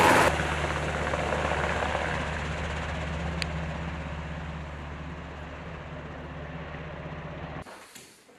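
A UH-60 Black Hawk medevac helicopter flies past. Its rotor and engine are loud at first, drop suddenly just after the start, then settle into a steady low hum that slowly fades as it climbs away. Near the end the hum cuts off abruptly, leaving only faint knocks.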